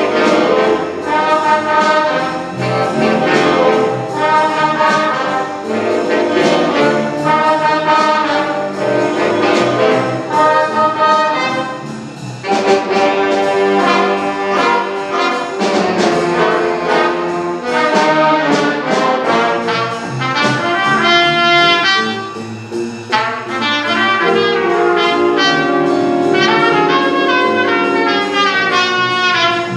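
School jazz big band playing: a brass section of trumpets and trombones with saxophones, backed by piano and drums.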